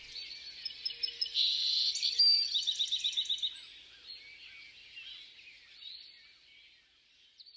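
Songbirds chirping and trilling, several calls overlapping, including rapid runs of repeated notes. The calls thin out and fade toward the end.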